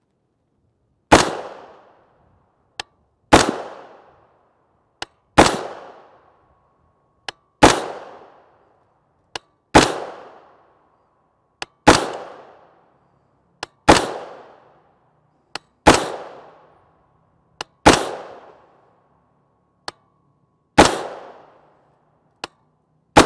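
Unsuppressed 10.5-inch AR-15 pistol in 300 Blackout firing subsonic 220-grain Sierra MatchKing rounds: a string of about eleven shots, roughly two seconds apart, each trailing off briefly. A small sharp click comes between most of the shots. The magazine runs empty on the last shot, which locks the bolt back.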